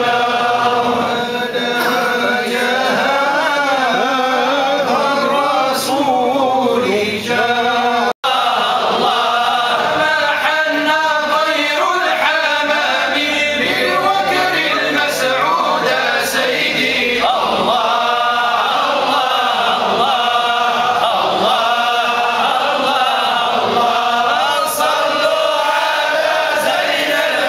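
A group of men chanting devotional verses together in unison, voices held and drawn out, with a split-second break about eight seconds in.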